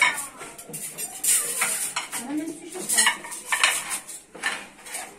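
Ceramic plates and metal serving trays clinking and clattering as dishes are set down and shifted on a counter, in a series of irregular knocks and clinks.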